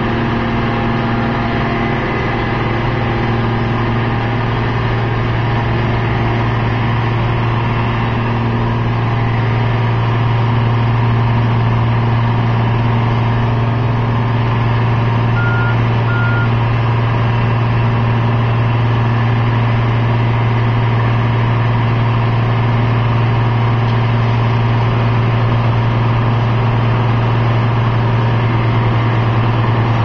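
Heavy diesel engines of road-construction machinery, a road milling machine and a dump truck, running steadily in a deep, continuous drone that grows a little louder about ten seconds in. Two short high beeps sound about halfway through.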